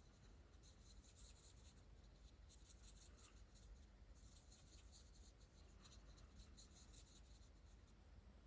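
Faint, quick strokes of a Spectrum Noir Tri-Colour Aqua water-based marker's brush tip on hot-press watercolour paper, coming in short runs with brief pauses between them.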